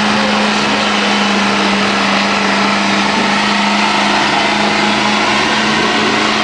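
Lifted Ford Super Duty pickup doing a burnout on 49-inch tires: the engine is held at a steady high pitch while the rear tires spin and smoke on the pavement, with a dense rushing noise from the tire spin. The sound stays even and loud throughout, with no change in revs.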